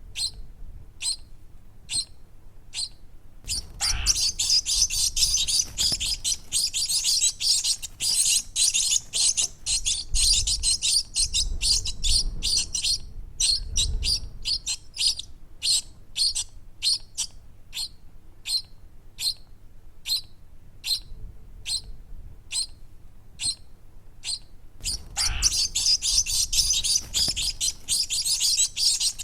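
Baby bird chirping: short high-pitched chirps, spaced apart at first, breaking into fast continuous chirping about four seconds in, then spaced again, and fast again near the end.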